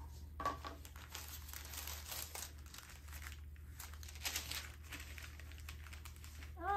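Crisp tissue paper rustling and crinkling in uneven strokes as hands lift a box lid and unfold the paper wrapped around a silk scarf. A short pitched cry starts right at the end.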